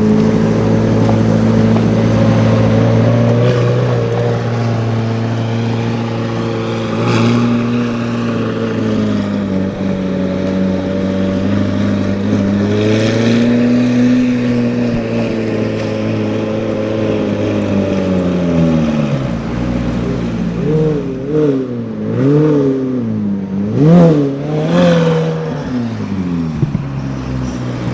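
Sports car engine running at a steady low speed with slow small changes in pitch, then blipped several times in quick rises and falls of revs, the loudest blip near the end.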